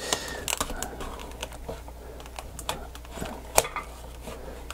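Clear plastic blister packaging crackling and clicking as a knife cuts along its edge, in irregular small clicks with one sharper snap about three and a half seconds in.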